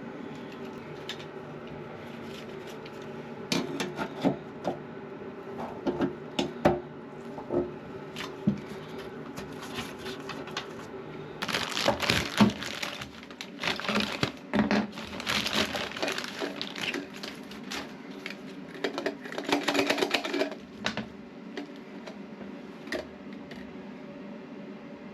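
Hands working on plastic toilet fill-valve parts: scattered clicks and knocks, then two stretches of dense crackling and rustling, one about halfway through and a shorter one near the end, over a steady low hum.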